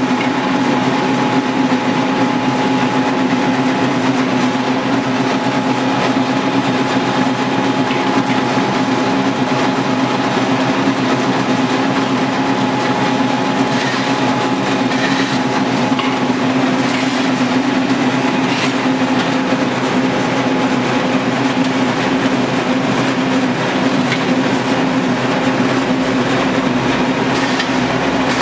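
LK120 screw oil press running steadily as it presses seed: a continuous mechanical drone with a steady hum. A few faint clicks come about halfway through and again near the end.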